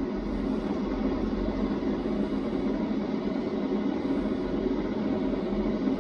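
White noise machine running, giving a steady, even rushing noise that holds unchanged throughout.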